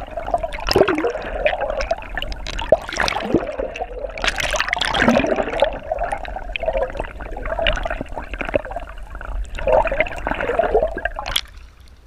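Underwater sloshing and gurgling, with bubbles and turbulent water churning against a camera submerged beside a boat's hull. The churning cuts off suddenly near the end as the camera breaks the surface.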